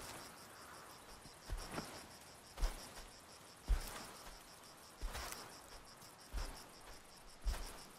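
Insects chirping in an even, repeating high pulse over quiet ambience, with a few soft low thumps and rustles at irregular intervals.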